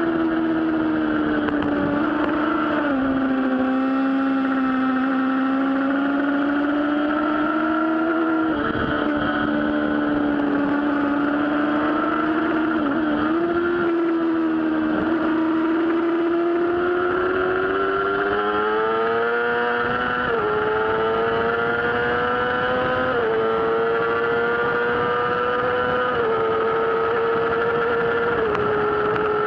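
Yamaha R6 sport bike's inline-four engine on a track lap, heard onboard over wind rush. The revs hold and dip with throttle changes through a long corner, then climb in the second half with several quick upshifts.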